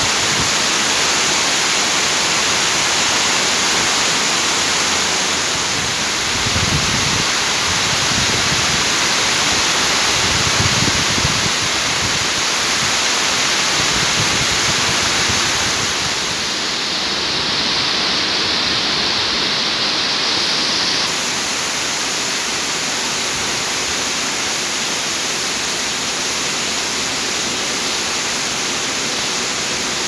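Heavy rain pouring steadily, with runoff streaming off a roof edge. A couple of brief low rumbles come about seven and eleven seconds in.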